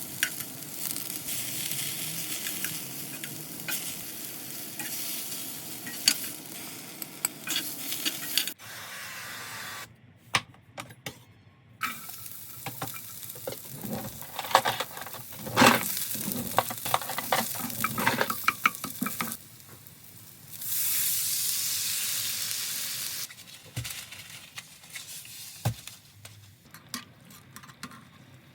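Food sizzling in a frying pan while being stirred, with the clicks and scrapes of a utensil against the pan; the sound breaks off and resumes at several cuts, and about three quarters of the way through a louder, steady sizzle runs for about three seconds.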